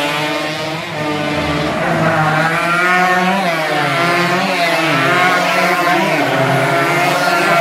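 Racing motorcycle engine revving hard as the bike passes close by. Its pitch climbs and drops several times with the throttle and gear changes.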